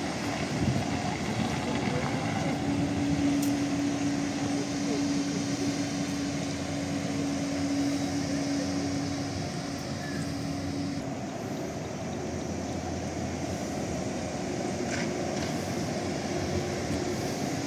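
Trolleybuses moving along a city street: a steady electric-drive hum over tyre and traffic noise. The hum stops and the sound changes abruptly about eleven seconds in.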